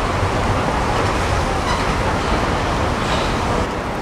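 Electric tram running, a steady rumble of wheels and motors with no distinct tones; the level drops slightly near the end.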